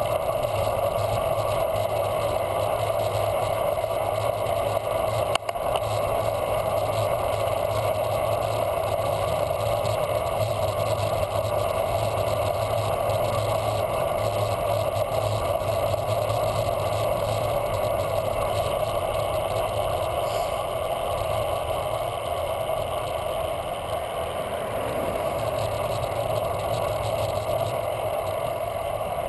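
Steady wind buffeting on the microphone and road noise from a bicycle riding on pavement, with one brief click about five seconds in.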